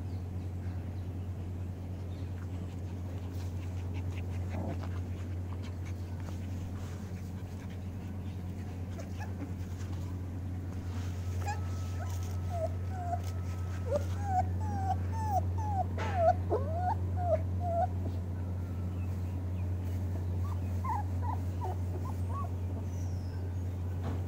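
Puppies whimpering and yipping in short rising-and-falling cries. A quick string of them comes about halfway through and a few more near the end, over a steady low hum.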